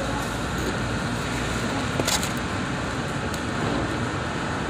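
Steady background noise of a restaurant dining room, with a brief crackle about two seconds in.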